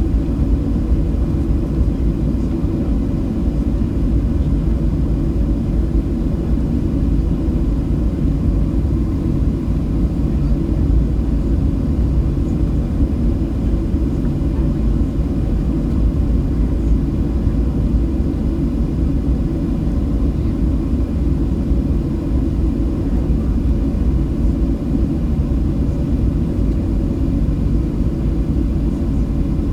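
Steady rumble of a Boeing 737-700's engines and airflow heard inside the passenger cabin, holding even with no change in pitch.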